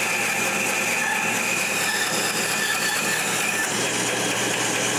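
Bandsaw running and cutting through wood: a steady motor hum under a continuous sawing noise, with a freshly sharpened blade.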